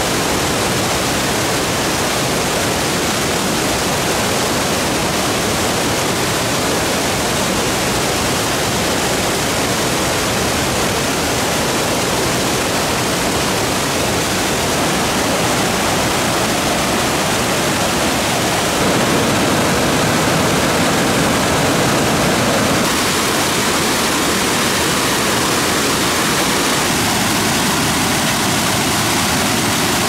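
Steady, loud rush of a waterfall swollen with muddy rainy-season water, pouring over a rock ledge and crashing onto boulders below. The tone of the rush shifts slightly a little over two-thirds of the way through.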